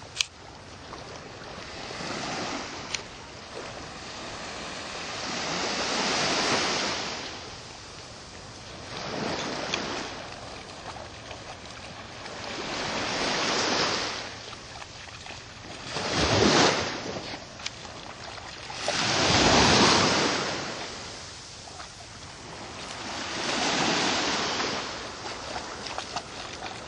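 Small waves washing onto a sandy beach in shallow water, the surf noise swelling and fading every few seconds, with wind on the microphone.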